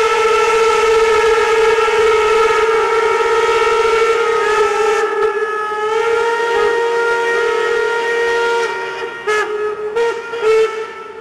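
Several steam locomotive whistles blowing together in one long chord. The pitches shift about halfway through, and the sound breaks up and falters near the end.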